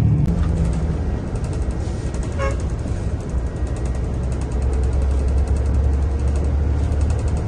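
Bus engine and road noise rumbling steadily from inside a moving bus, with a short vehicle horn toot about two and a half seconds in.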